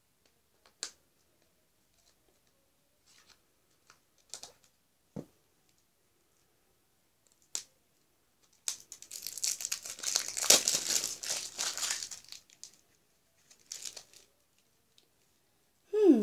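A candy wrapper being torn and peeled off a sherbet tub: scattered small crinkles and clicks, then about four seconds of loud, continuous tearing and crackling from a little past halfway, followed by a few last crinkles.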